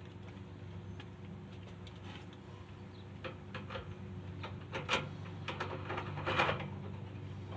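A steady low hum with scattered short clicks and knocks, which start about three seconds in and grow louder and more frequent toward the end.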